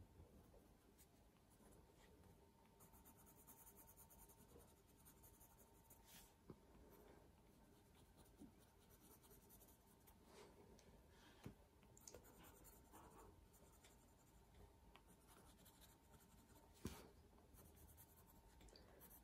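Faint scratching of a coloured pencil shading back and forth on heavy cartridge drawing paper, coming and going in stretches, with a few soft taps.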